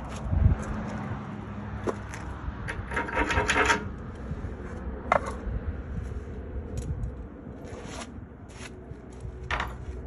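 Scattered metallic clinks and knocks, with a short scraping rattle about three seconds in.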